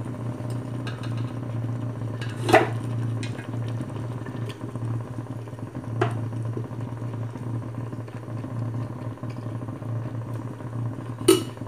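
A spoon knocking against a cooking pot three times while cooked biryani rice is spooned over the mutton: about two and a half seconds in, around six seconds, and sharply again near the end. A steady low hum runs underneath.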